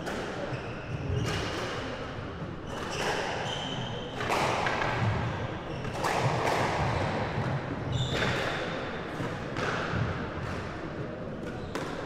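Squash balls striking walls and floor in an echoing squash hall, a quick series of sharp thuds, mixed with short high squeaks of court shoes on the wooden floor.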